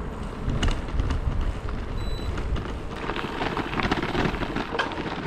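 Gravel-bike tyres rolling over a loose gravel track, a steady crunching crackle of small stones, with wind buffeting the microphone.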